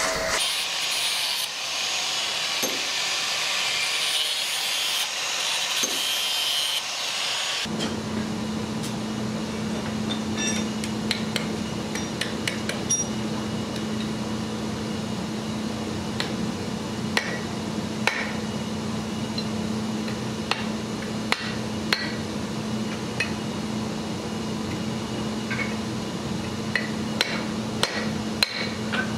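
A hand hammer striking red-hot steel on the horn of an anvil in light, irregular blows, the small piece held in tongs. The blows begin about eight seconds in, after a steady hiss.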